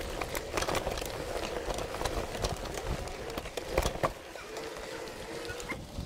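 Mountain bike rolling over a dirt and gravel trail: tyres crunching and the bike rattling over bumps in frequent clicks, with a steady hum and wind rumble on the microphone. A sharp knock comes a little under four seconds in.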